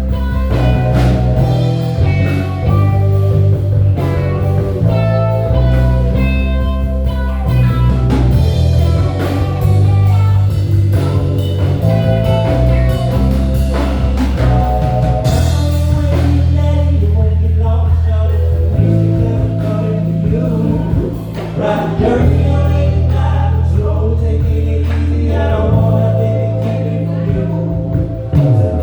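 Live band music: a bass guitar holding long notes under drums, keys and a melodic lead line, in a blues/soul style.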